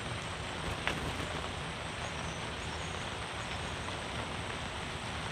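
Steady rain falling on and around a fabric canopy tent, an even hiss with a faint tap about a second in.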